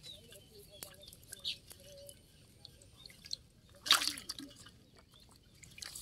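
Live fish flapping and splashing in a shallow metal basin of water, with small drips and clicks and one louder splash about four seconds in.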